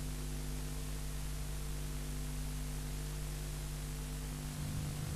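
Steady hiss with a low electrical hum: the background noise of a recorded TV broadcast, with no music or voice yet.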